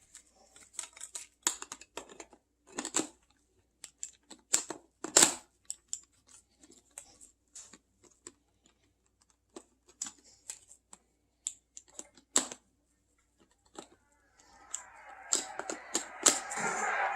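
Hard plastic parts being handled and clicked together: irregular sharp clicks and knocks, the loudest about five seconds in. Near the end a denser, steadier sound rises.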